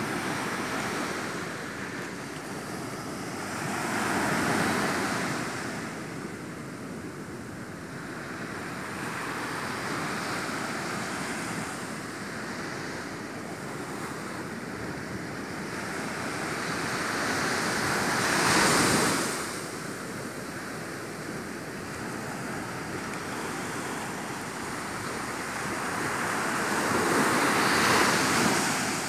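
Ocean surf: a steady wash of waves, swelling louder three times as waves break, a few seconds in, past the middle, and near the end.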